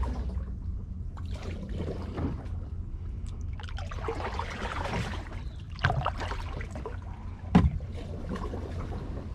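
Kayak paddle strokes dipping and swishing through the water, with two sharp knocks, the louder one about seven and a half seconds in.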